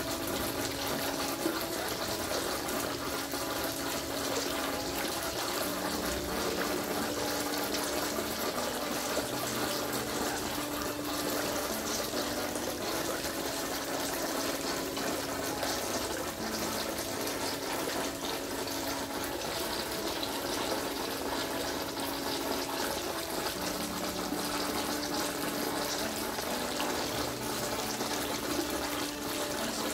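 Water pouring steadily from a small fountain spout into a koi pond, splashing on the surface, with a faint low hum that comes and goes underneath.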